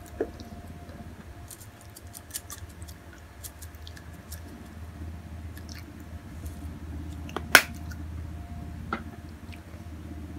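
Faint clicks, taps and light rustles of hands handling food and a packet while bon nori seaweed flakes are added to a bowl of noodles, with one sharp click about seven and a half seconds in, over a low steady hum.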